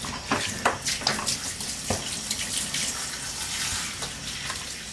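Water running from a handheld bathtub sprayer and splashing in the tub as a puppy is rinsed, with a few sharp splashes in the first couple of seconds.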